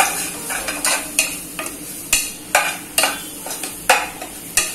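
Metal spoon stirring frying onion masala in a pressure cooker, clinking against the pot about every half second over a steady sizzle.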